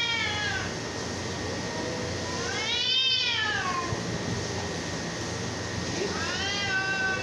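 Cats in a face-off yowling at each other: long drawn-out yowls that rise and then fall in pitch. One dies away just after the start, a long one comes about halfway, and another starts near the end.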